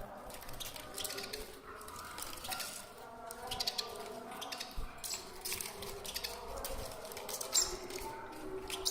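Pet birds moving about: a steady run of small clicks, taps and rustles, with faint calls underneath.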